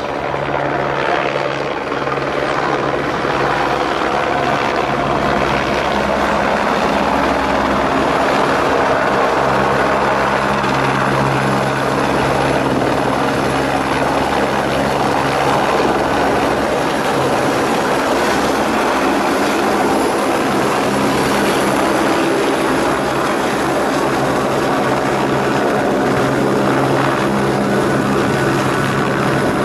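Airbus AS350 Écureuil helicopter's turbine and main rotor running loud and steady, building over the first couple of seconds. It hovers low over the pad and settles onto it with the rotor still turning.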